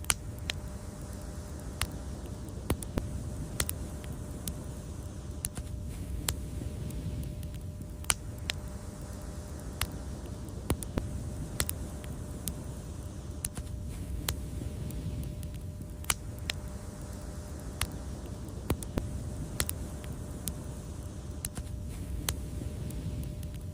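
Fireplace wood fire crackling: a steady low rumble of flame with sharp pops and snaps at irregular moments, roughly one a second.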